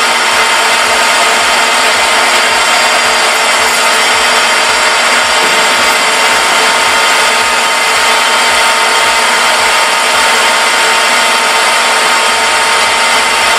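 Metal lathe running and cutting, its tool fed by hand across the head of a bolt to turn it into a taper: a steady, even machining sound with a constant tone through it.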